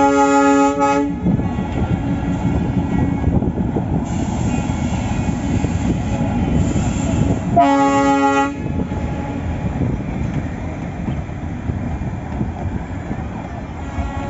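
Darjeeling Himalayan Railway toy train sounding its horn in two blasts of about a second each, one at the start and one about eight seconds in, over a continuous loud rumble.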